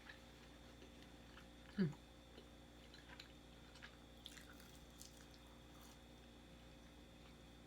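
Close-up eating sounds: faint wet clicks and chewing of a mouthful. About two seconds in, a brief low hum of the voice that falls in pitch.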